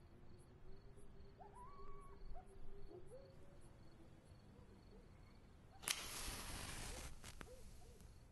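A wooden match struck about six seconds in: a sharp scratch, then the hiss of the flaring head for about two seconds. Before it, crickets chirping in a regular rhythm with a few short animal calls rising in pitch.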